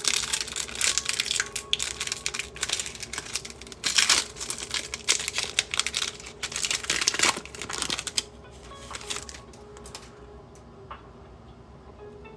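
Crinkling and tearing of a foil trading-card pack being ripped open, with the cards rustled and handled. Dense crackling for about eight seconds, with two louder rips around the middle, then it goes quieter.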